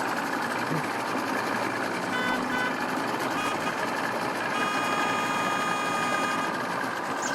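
Steady din of idling engines. Two short high beeps come a couple of seconds in, then a single steady high tone lasts about two seconds near the middle.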